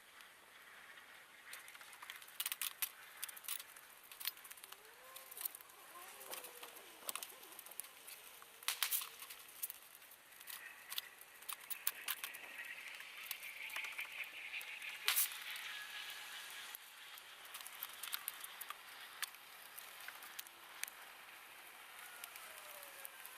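Dying bonfire crackling: irregular sharp pops and snaps over a faint hiss, with a few faint wavering whistles about a quarter of the way in.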